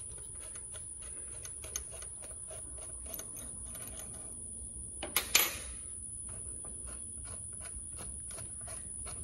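Light, rapid metallic clicks of a hand bit driver turning the E6 Torx screws on a Briggs & Stratton twin-barrel carburetor, with a couple of louder knocks about five seconds in.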